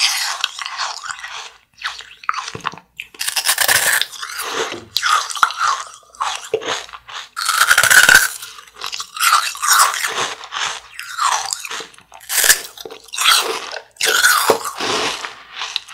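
Crunching bites and chewing of a piece of blue candy, heard as a string of separate crisp crunches.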